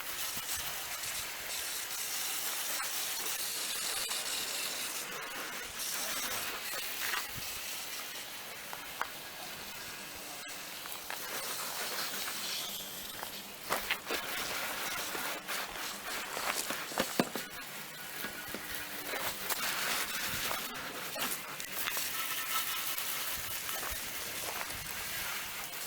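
Water spraying onto a lawnmower as it is washed down: a steady hiss that swells and fades as the spray moves, with a few sharp knocks.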